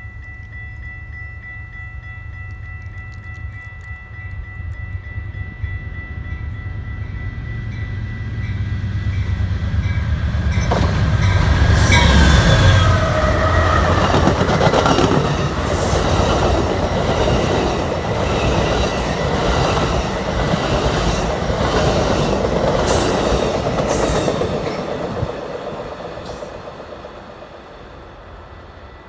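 Amtrak passenger train led by a GE P42DC and a Siemens ALC-42 Charger diesel locomotive passing at speed. The locomotives' rumble builds as they approach, and about a third of the way in the train reaches the microphone. The bilevel Superliner cars then rush past with rhythmic wheel clatter on the rails, and the sound fades as the train recedes near the end. A grade crossing bell rings steadily during the approach.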